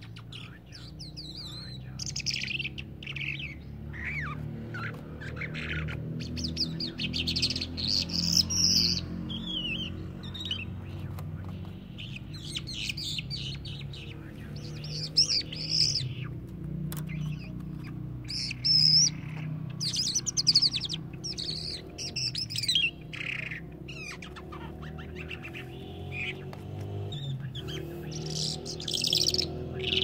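Small caged songbird singing: quick, varied high chirps and warbled phrases in bursts with short pauses between them. A steady low hum runs underneath.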